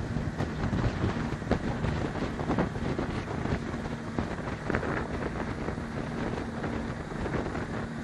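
Wind buffeting the microphone over the steady low hum of a small motorboat's engine, heard from aboard the boat while it runs.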